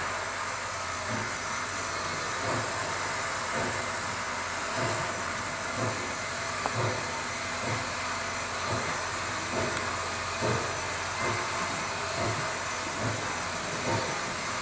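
East Broad Top narrow-gauge 2-8-2 steam locomotive starting its train at walking pace, with a steady hiss of steam from its open cylinder cocks. Its slow exhaust chuffs gradually quicken as it gets under way.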